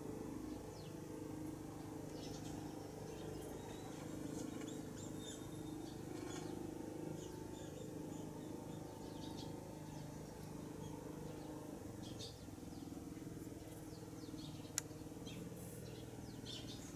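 Mother cat purring softly and steadily while her kittens nurse, with faint, short bird chirps scattered throughout and a single sharp click near the end.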